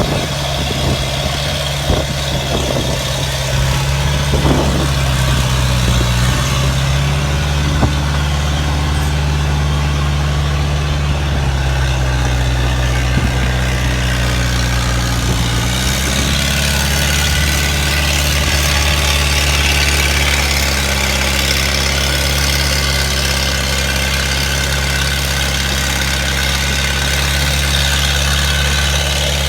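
Engine running, its note shifting in pitch for several seconds before settling to a steady run, with a few sharp knocks in the first part.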